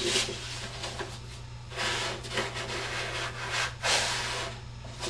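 2-ply corrugated cardboard rubbing and rustling under the hands as it is pressed and creased along a fold, in two longer scraping passes, about two seconds in and near four seconds.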